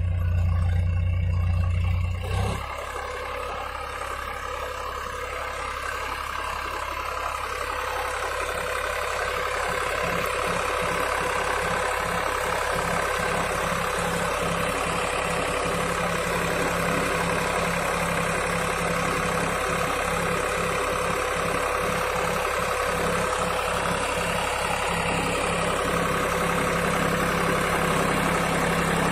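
Massey Ferguson 7250 DI tractor's three-cylinder diesel engine running steadily under load while it pulls a cultivator through hard soil. A deep low rumble fills the first two seconds or so, then gives way abruptly to the even drone of the engine.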